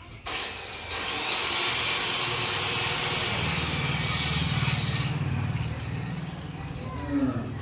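A power tool grinding or cutting: a steady motor hum with a loud, harsh hiss of cutting for about four seconds, easing off to a lower hum after that.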